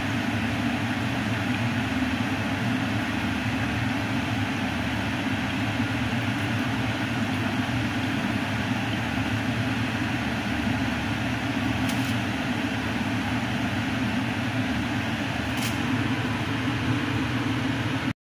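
Doughnuts deep-frying in a pan of hot oil: a steady sizzle over a low hum. Two faint clicks come about two-thirds of the way through, as tongs turn the doughnuts. The sound cuts off just before the end.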